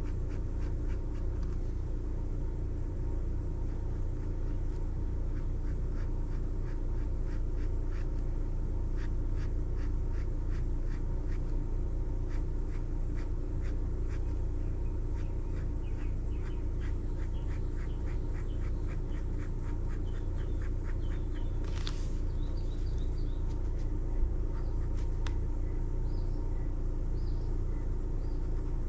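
Pen nib scratching on sketchbook paper in many short, quick hatching strokes, over a steady low background rumble.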